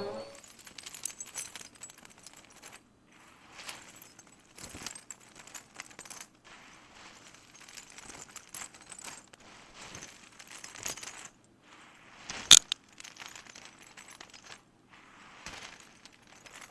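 Light, scattered clicking and rattling of small hard objects, with one sharp, loud click about twelve seconds in.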